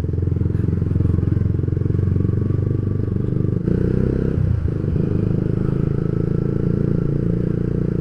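Yamaha Vixion's single-cylinder four-stroke engine running at low road speed under light throttle, its note shifting briefly about four seconds in.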